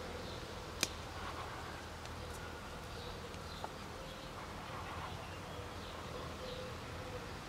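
Garden ambience of faint bird chirps and a steady insect buzz, with one sharp snap about a second in as green onion stalks are picked by hand, and a softer click a few seconds later.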